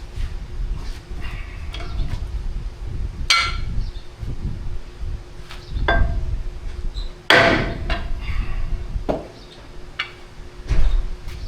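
Hammer blows on the steel taper-lock hub of a John Deere 730 crankshaft: about six separate, irregularly spaced strikes with a short metallic ring, the loudest a little past the middle.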